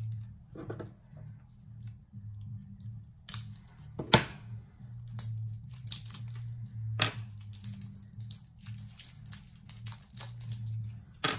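Fingers peeling the plastic wrap off AAA batteries: scattered crinkles and sharp clicks, the loudest click about four seconds in, over a low steady hum.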